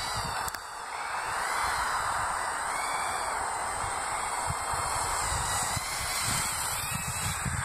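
Micro racing quadcopter's 1306 brushless motors whining in flight, the pitch rising and falling with the throttle, over a steady hiss and rumbles of wind on the microphone.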